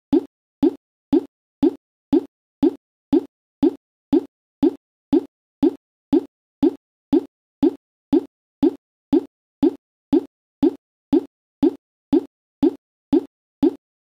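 A short, pitched plop repeated at a perfectly even pace, about twice a second, with dead silence between each one, like a looped sound effect.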